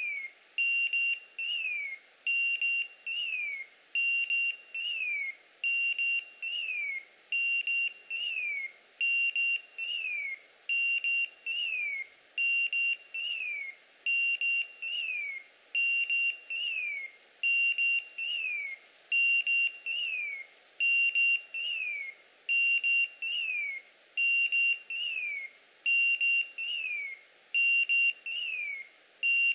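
Electronic beeper collar on a hunting setter sounding its signal: a short steady beep then a falling chirp, repeating about every second and a half. It is the beeper's signal that the dog is holding point on a partridge.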